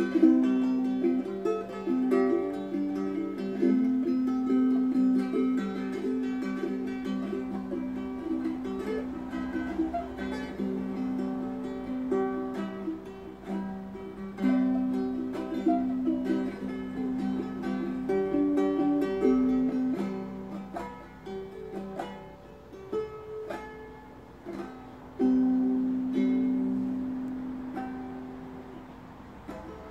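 Solo ukulele played by hand, picked notes and strummed chords. A final chord a few seconds before the end rings and fades out.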